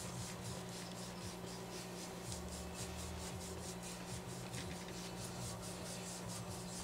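Fast back-and-forth scrubbing strokes, about five a second, as a chainsaw starter part is wiped clean after being sprayed with WD-40 to clear out any metal debris from a broken bearing race.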